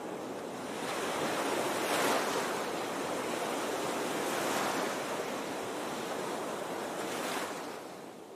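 Rushing noise of wind and water, swelling and easing several times and fading out near the end. No engine tone can be picked out.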